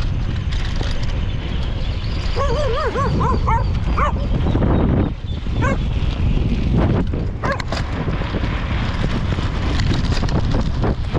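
Dogs barking and yelping at a cyclist, with a quick run of high, wavering yelps about two and a half seconds in and sharp single barks scattered through the rest. A steady low rumble runs underneath.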